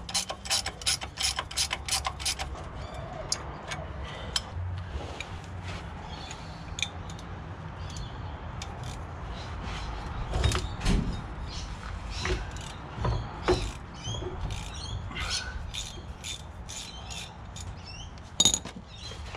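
Ratchet wrench clicking in quick, even strokes as bolts on a differential are worked loose, thinning out after a couple of seconds. Then scattered clicks and a few dull metallic knocks of tools and parts.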